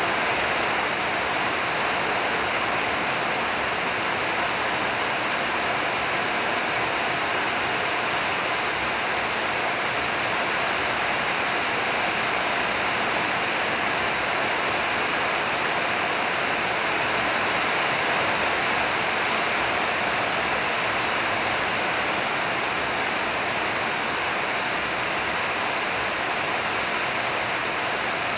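A steady, even rushing hiss of background noise.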